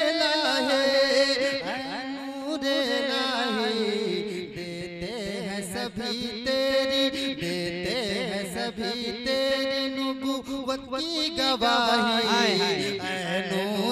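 A man singing a naat into a microphone, in long drawn-out lines whose pitch wavers and glides, with some notes held steady.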